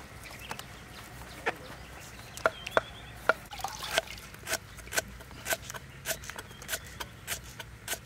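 Kitchen knife slicing lemongrass stalks on a wooden chopping board: sharp knocks of the blade striking the wood, a few at first, then steady at about two a second.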